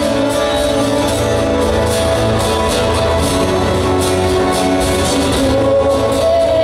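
Live music: a strummed acoustic guitar over steady, held backing tones.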